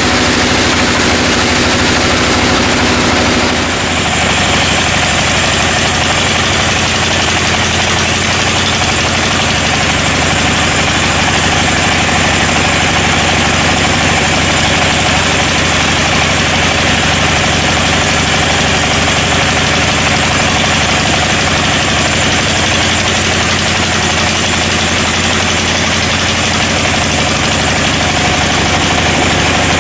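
Sawmill machinery engine running steadily, its sound shifting about three and a half seconds in.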